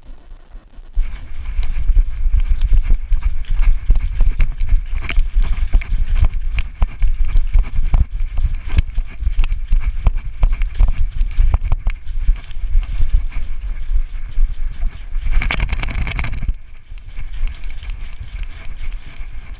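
A dog sprinting over dry leaf litter, heard from a camera strapped to her back: fast, irregular thumps and crackles of footfalls and the jolting camera mount over a heavy low rumble. It starts about a second in and drops off sharply about three seconds before the end, leaving quieter rustling steps.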